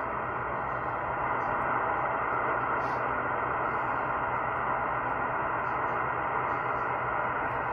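Steady hiss of shortwave static from a receiver tuned to an upper-sideband HF aviation weather channel, with no voice on the frequency. The noise is held within the narrow single-sideband voice passband.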